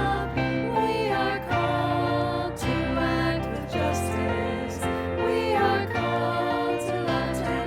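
Church hymn music with choir voices singing sustained notes over a steady low accompaniment.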